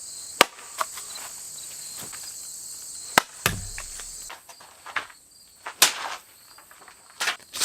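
A scattered series of sharp clicks and knocks, irregular and a second or more apart, over a steady high hiss that stops about four seconds in.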